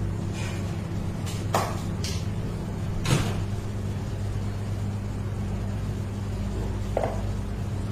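Metal palette knife scraping and tapping on a metal cake turntable while smoothing icing: a few short sharp clicks, the loudest about three seconds in and another near the end, over a steady low hum.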